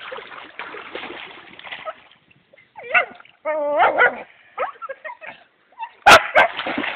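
Dog whining and yipping in short, bending, high calls, after a stretch of water splashing that stops about two seconds in. Two loud, sharp sounds come about six seconds in.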